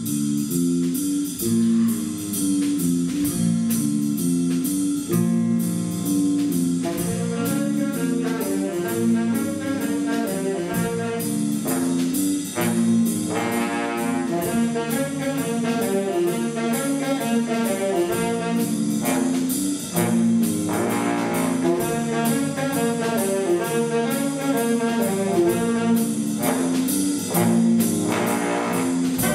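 Jazz big band of saxophones, trumpets, trombones, bass and drum kit playing a bluesy riff-based tune over a steady drum beat.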